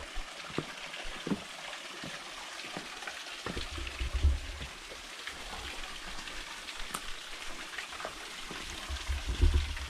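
Steady hiss of running water, with scattered small clicks. There is a low rumble about four seconds in and another near the end.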